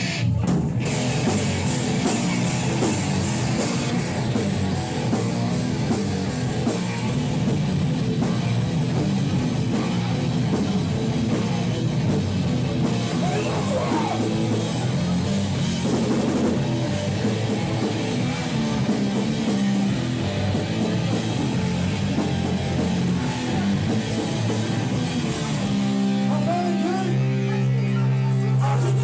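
Hardcore punk band playing live at full volume: distorted electric guitars, bass and a drum kit pounding away. Near the end the cymbals drop out and the band lets a held chord ring.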